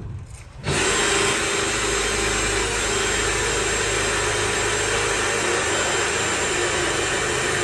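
DeWalt cordless drill running steadily under load, a 4 mm bit boring a pilot hole through a timber batten into the thick steel angle iron behind it. It starts about a second in and holds an even pitch throughout.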